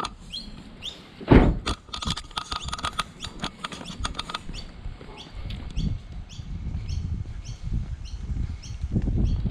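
A car door shuts with a thump about a second in, followed by footsteps. A bird's short high chirp repeats about twice a second.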